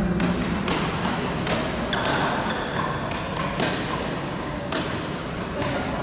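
Badminton rally: rackets striking the shuttlecock, about eight sharp hits at irregular spacing of half a second to a second.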